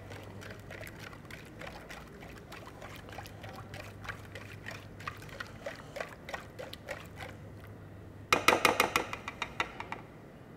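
Metal slotted spoon stirring a liquid salad dressing in a ceramic bowl: light clinks and liquid swishes, with a louder run of quick clinks about eight seconds in.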